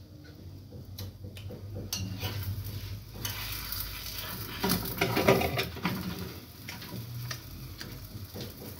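A metal plate and frying pan clattering, with food sizzling in the pan on a gas stove. A few clicks at first, then the clatter and sizzle grow from about two seconds in, loudest around the middle.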